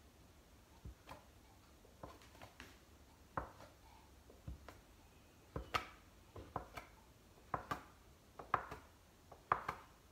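Plastic dough scraper cutting a strip of youtiao dough into short pieces, knocking on the countertop with each press: light, sharp knocks, irregularly spaced and coming faster in the second half.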